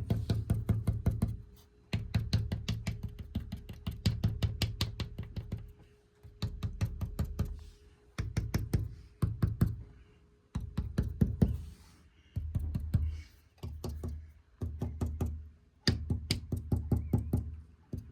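Background music with a steady drum-machine beat over a bass line that pauses briefly about every two seconds.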